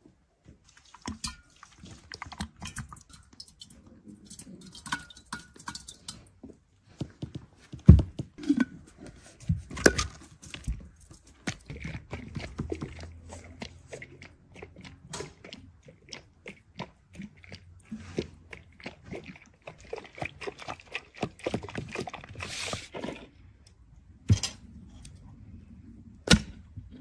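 Kitchen work: irregular knocks, clinks and thuds of utensils and cookware being handled, the loudest thud about eight seconds in, with a short hiss a little over twenty seconds in.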